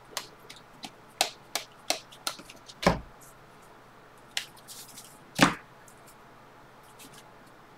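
Bowman Draft baseball cards being flipped through by hand and dropped onto stacks on a table: a string of light card clicks and taps, with two louder thumps about three seconds and five and a half seconds in.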